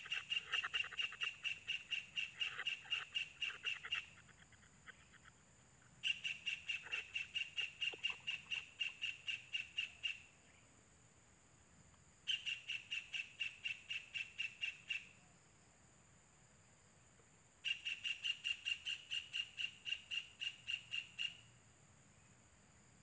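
Young white-throated kingfishers calling: four bouts of fast, evenly repeated high calls, about five a second and steady in pitch. Each bout lasts three to four seconds, with short pauses between.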